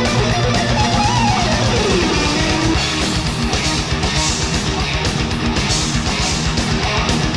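Rock music with electric guitar, bass and drums playing to a steady beat; about a second in, a high line slides down in pitch for a second or two.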